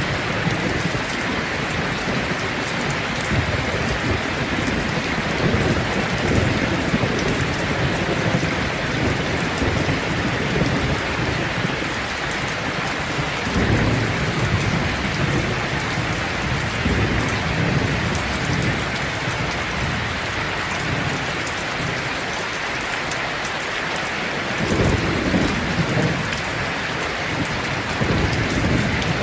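Steady heavy rain hissing, with low rolls of thunder rumbling up and fading several times.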